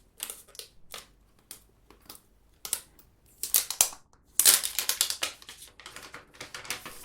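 Thin plastic protective film being peeled off a new smartphone, crinkling and crackling in irregular bursts, loudest about four and a half seconds in.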